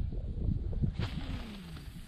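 Irregular low rumble and bumps of wind and handling noise on a body-worn camera microphone, with a brief hiss about a second in and a short low tone falling in pitch just after.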